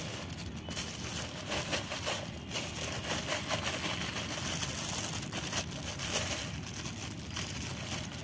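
Plastic bag crinkling and rustling as crumbled jaggery is shaken out of it into a plastic jar, with irregular small crackles throughout.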